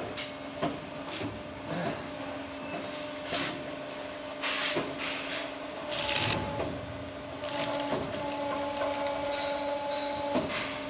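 Motor stator recycling machine running with a steady hum, with a few sharp metal clanks in the first two seconds as a cut stator is set on its clamping jaws. A higher tone joins the hum partway through as the machine pulls the copper windings out of the stator core.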